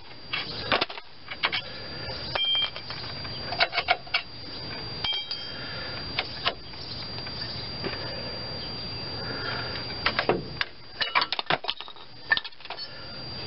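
Scattered metallic clinks and knocks as a 1993 Chevy S-10's front disc brake caliper is worked loose and lifted off the rotor.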